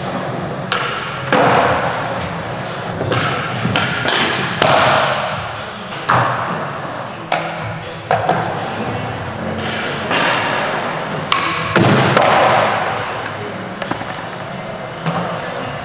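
Skateboard riding on smooth concrete: wheels rolling, with a dozen or so sharp knocks from tail pops, board slaps and landings. A rolling rush follows several of the impacts.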